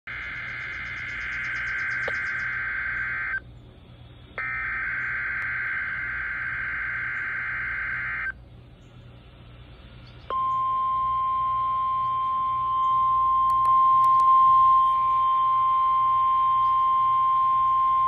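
Midland ER50 weather radio's speaker sounding a NOAA Weather Radio Required Weekly Test. It plays two bursts of the SAME digital header, each a harsh warbling data screech of about four seconds with about a second's gap between them. About ten seconds in, a steady single-pitch 1050 Hz warning alarm tone begins and holds.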